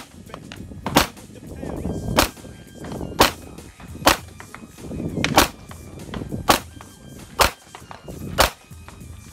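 A Ruger LCP .380 pocket pistol fired eight times, about one shot a second.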